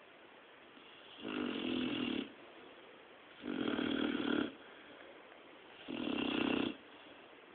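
Great Dane snoring in its sleep: three snores about a second long, one every two and a half seconds or so.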